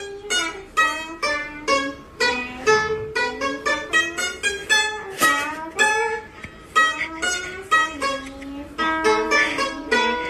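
Background music: a quick plucked-string tune, notes struck two to three a second.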